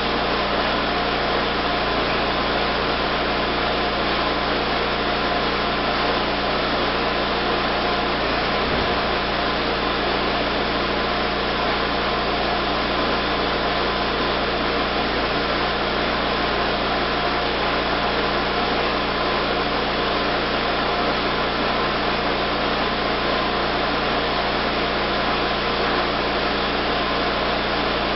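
Steady, unchanging hiss with a hum at a few fixed pitches, like a machine running, with no separate sounds standing out.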